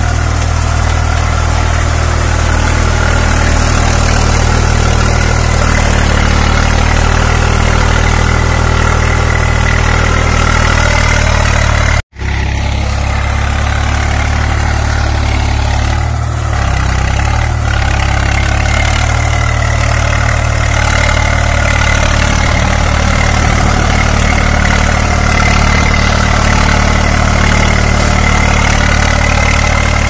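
Swaraj 735 FE tractor's three-cylinder diesel engine running steadily under load as it drags a cultivator on iron cage wheels through flooded paddy mud. The sound drops out for an instant about twelve seconds in.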